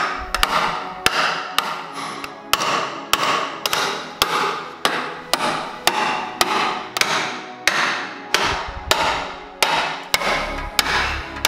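Hammer blows on steel locking pliers clamped on a broken bolt stub in a Tatra axle housing, about two blows a second, each ringing briefly. The seized bolt is being driven round to work it out of its thread.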